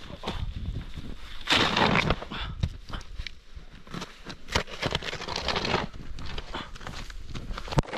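Footsteps crunching through deep snow, irregular crunches and rustles with two louder stretches, about a second and a half in and about five seconds in.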